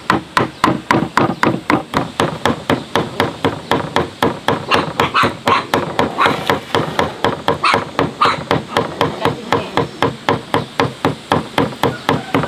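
Cleaver mincing bony meat on a wooden chopping board, steady rapid chops at about four to five strokes a second.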